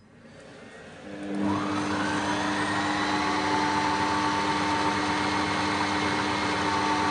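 Cecotec Mambo kitchen robot starting up about a second in. Its motor spins up with a rising whine and then runs steadily at speed 4, stirring thick quince paste in its open jug.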